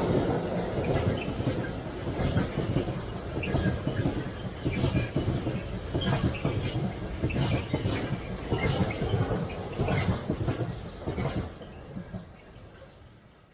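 Freight train of tank wagons rolling past, its wheels clacking over the rail joints in a regular beat over a steady rumble. The sound fades away as the last wagon goes by near the end.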